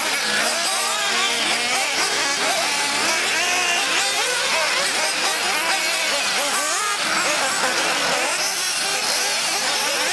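Several 1/8-scale nitro RC buggies racing, their small two-stroke glow engines making an overlapping high-pitched whine that keeps rising and falling in pitch as they speed up and slow down through the corners.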